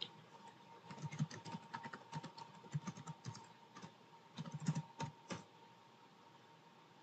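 Typing on a laptop keyboard: a run of quick, irregular key clicks starting about a second in and stopping a little over halfway through.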